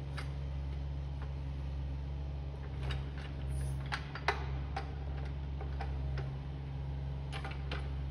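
Mini excavator's engine running steadily at a distance, with scattered sharp clicks and cracks over it, a cluster a few seconds in and a few more near the end.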